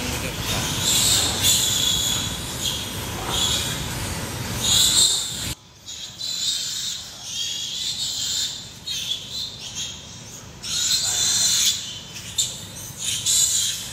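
Piglets in farrowing crates squealing in repeated short, high-pitched bursts over a low rumble. The rumble drops away suddenly about five and a half seconds in.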